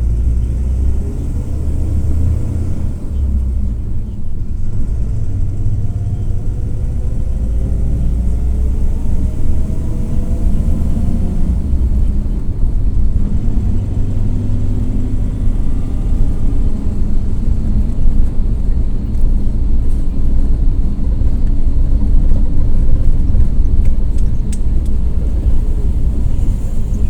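Volare W9C ON minibus under way, heard from inside: its Cummins ISF 3.8 four-cylinder turbodiesel runs with a steady low rumble, and a whine climbs in pitch as the bus picks up speed, twice. The whine is the differential whine the owner points out from third gear upward.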